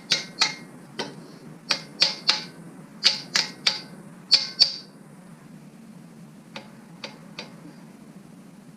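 Ratchet wrench being worked in short strokes on a small-block Chevy's main bearing cap bolts: sharp metallic clicks in quick groups of two or three. The clicks are loud for the first few seconds, then fainter and sparser.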